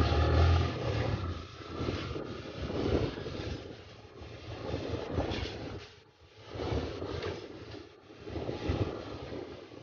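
Rushing wind and road noise from a motorcycle riding on a rough dirt road, swelling and fading every second or two.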